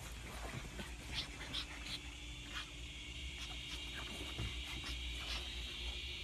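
Two pugs play-fighting on sofa cushions: scattered short dog noises and scuffles over steady background noise.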